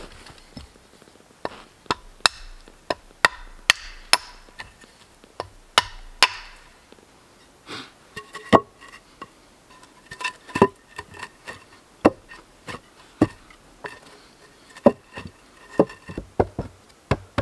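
Hammering on wood: sharp blows in irregular runs of one or two a second, some leaving a brief ringing tone.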